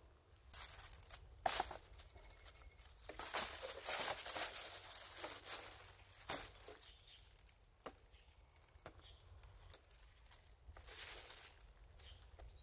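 Rustling and crinkling of handled material, in irregular bursts with a few light knocks and clicks.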